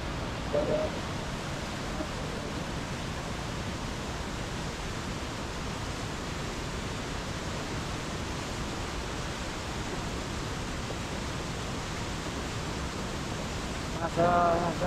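Flooded mountain river in spate, its whitewater rushing over boulders in a steady, even roar of water.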